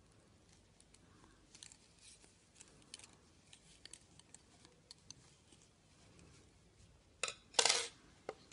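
Metal double-pointed knitting needles clicking lightly against each other as stitches are worked, a scatter of small ticks. Near the end there is a louder, brief clatter and rustle as the needles are handled.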